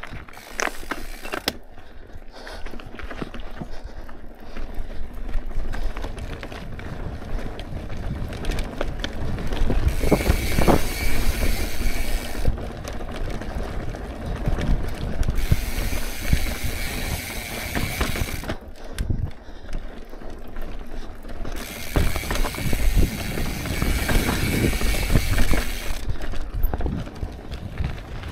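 Mountain bike rolling over rock and dirt, with low rumble and knocks from the rough trail; three times, for a few seconds each, the rear hub's ratchet buzzes steadily as the bike coasts.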